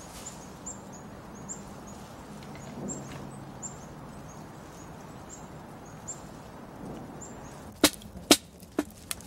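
Quiet woodland air with short, faint high chirps of small birds recurring every half second or so. About eight seconds in come four sharp, loud knocks in quick succession.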